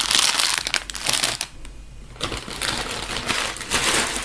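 Plastic packaging of an unopened squishy toy crinkling as it is handled and turned in the hands, in two spells with a short lull in between.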